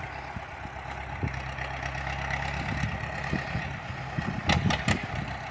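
Fendt 108S tractor's diesel engine idling steadily, with a few short knocks near the end.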